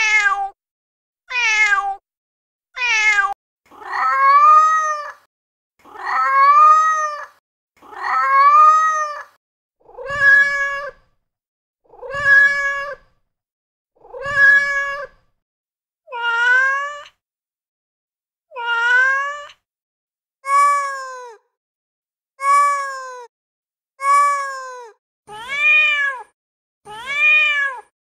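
Recorded domestic cat meows played back one after another from a cat-sounds app: about fifteen single meows, roughly one every two seconds, with dead silence between them. The voice changes every few calls as a different clip plays.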